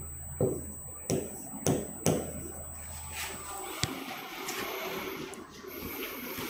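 Writing on a board: a few sharp taps in the first two seconds, then softer steady scratching strokes.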